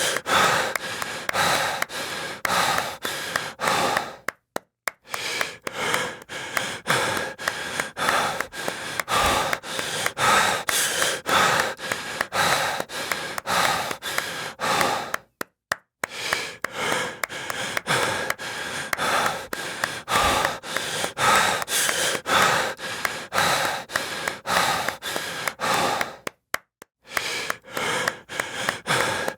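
Heavy, rapid breathing with quick rhythmic hand clapping, about three to four strokes a second. The run breaks off for a moment three times.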